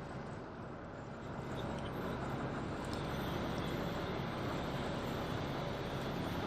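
Ferry's diesel engines running, a steady low drone with a hum, growing a little louder about two seconds in.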